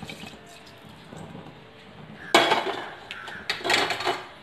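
Leftover frying oil tipped from a metal pan into an aluminium pressure cooker: a light trickle, then two loud, noisy bursts of metal cookware clattering and scraping, about two and a half and three and a half seconds in.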